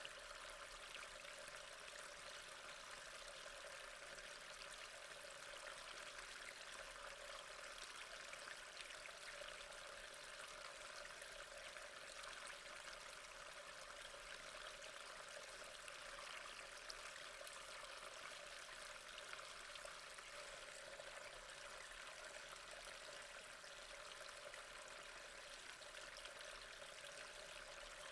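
Faint, steady trickle of gently flowing water, with small scattered drips and splashes.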